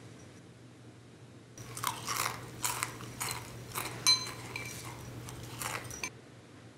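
Loud, crunchy chewing of a mouthful of cereal, about a dozen crunches starting about a second and a half in and stopping near the end. A metal spoon clinks and rings against a glass bowl among them, loudest about four seconds in.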